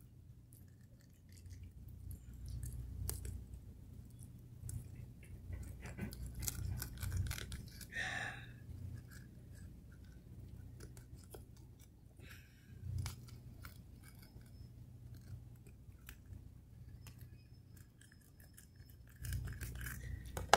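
Small clicks and scrapes of metal pliers working a deeply swallowed fishing hook out of a grouper's mouth, over a low steady rumble, with a brief squeak about eight seconds in.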